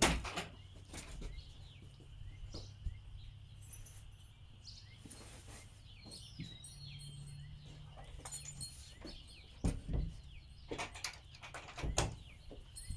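Birds chirping in an outdoor farmyard over a steady high drone, with several sharp knocks and rustles close to the microphone, the loudest about ten and twelve seconds in.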